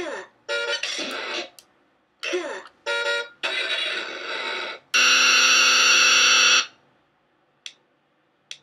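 Circuit-bent VTech Groovy Tunes toy radio sounding through its small speaker as its buttons are pressed: short bursts of electronic bleeps and falling, gliding glitch tones, then a loud steady buzzing tone about five seconds in that holds for over a second and a half and cuts off. Two faint clicks follow near the end.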